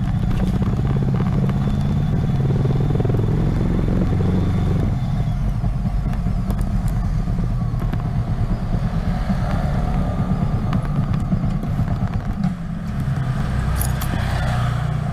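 2007 Yamaha Vixion's 150 cc single-cylinder four-stroke engine running at low speed, heard from the saddle, easing off almost to a stop near the end. A few sharp clicks near the end.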